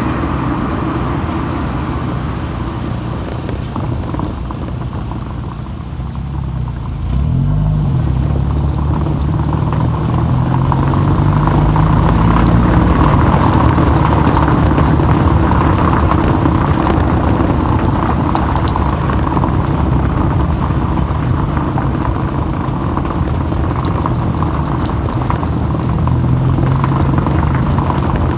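Car driving, recorded from a microphone on the outside of the car body: steady engine and road noise. About seven seconds in it grows louder and the engine's pitch rises as the car speeds up.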